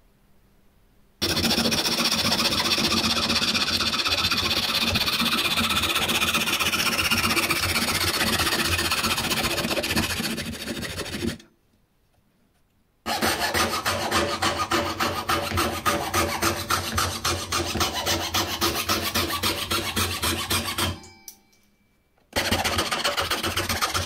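Hand-held jeweler's saw with a titanium frame sawing with fast back-and-forth strokes, in three bursts separated by short pauses; in the first burst the pitch of the blade's rasp slowly falls, and the last burst is the blade cutting through thin plywood.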